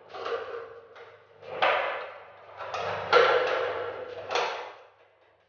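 Irregular knocks and clatters from an exit light fixture being handled and fitted, about six in all, each with a short ringing tail; they stop about five seconds in.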